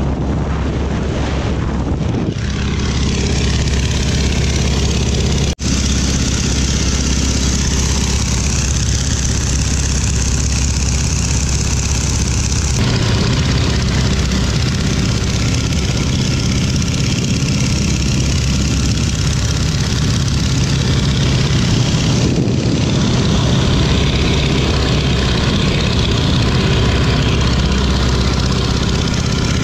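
Stearman biplane's radial engine and propeller running steadily in flight, with heavy wind rush over the open cockpit. The sound builds in the first second or two and breaks off sharply for an instant a little over five seconds in.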